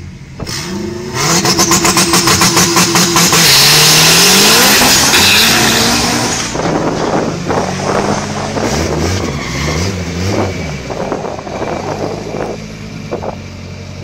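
Drag launch of a turbocharged LS/VTEC Honda Civic Si on 20 psi and a turbo Mustang: the engines go to full throttle about a second in and are loudest for the next few seconds, pitch climbing and dropping at each gear change. The sound then fades as the cars run down the strip, with fainter upshifts still audible.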